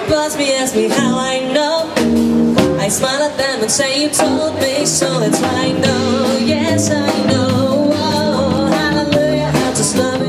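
A woman singing into a handheld microphone, amplified through a PA loudspeaker, over loud backing music.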